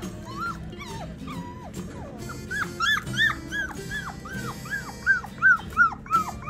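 Four-week-old Bernedoodle puppy yipping: a run of short, high rise-and-fall yelps. The yelps are scattered at first, then come about three a second from a couple of seconds in and grow louder near the end.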